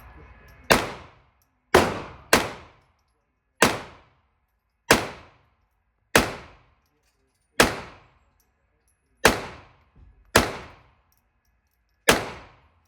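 Firearm shots at a shooting range: ten sharp shots at uneven intervals of about one to one and a half seconds, each with a short ringing echo.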